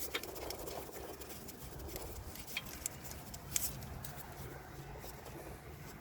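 A few light metallic clicks and small scrapes of the brake caliper bolts being handled and fitted back by hand, the sharpest click about three and a half seconds in, over a low steady hum.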